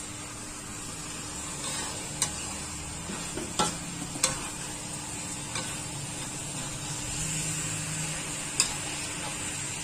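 Metal spatula stirring and turning milkfish in a thick red spice sauce in a wok, over a steady sizzle as the sauce cooks down nearly dry. The spatula clacks sharply against the wok about four times.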